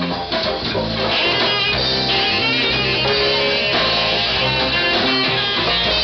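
A band playing, with guitar to the fore over bass and drums, steady and loud.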